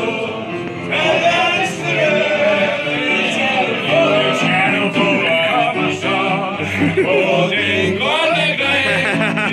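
A man singing a song with grand piano accompaniment, the piano holding chords beneath a strong, open-voiced male melody.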